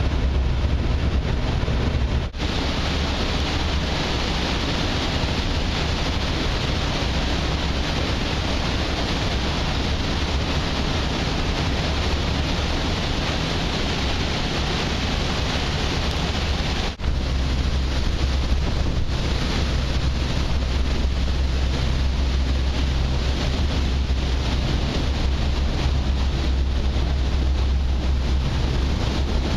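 Steady rush of wind on the microphone and churning water from a ferry's wake, over a low, steady rumble of the ship's engines. The sound drops out briefly twice, about two seconds in and again a little past the middle.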